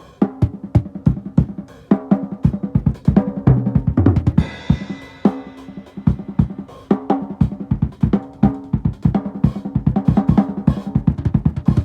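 Drum kit playing a steady groove of kick, snare and hi-hat hits, with a cymbal crash about four seconds in. The drums ring on with a low pitched tone between strokes.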